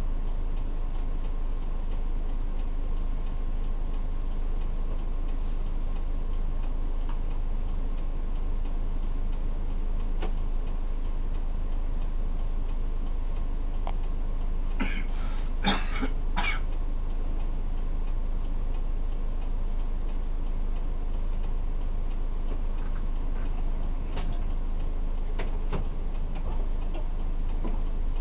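City bus diesel engine idling steadily while the bus stands at a red light, heard from inside the cabin, with a steady ticking. A cough sounds about halfway through.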